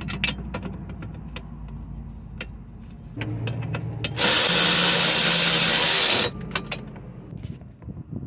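A small motor hums steadily and grows louder about three seconds in. Midway a loud hiss starts abruptly, lasts about two seconds and cuts off sharply, with scattered clicks and knocks of handling around it.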